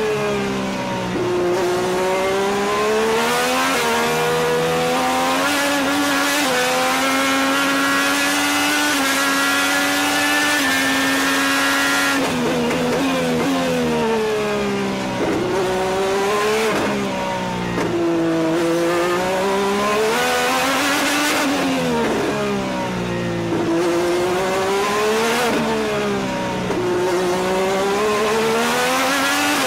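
IndyCar's Honda 2.2-litre twin-turbo V6 at racing speed, heard from the cockpit. It holds a high, slowly climbing note flat out for about twelve seconds, then the pitch drops and climbs again several times as the car brakes and shifts down into corners and accelerates back up through the gears.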